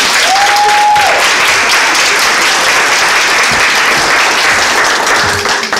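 Audience of seated women applauding, a steady clapping that fades near the end. A short high held note rises over it about half a second in.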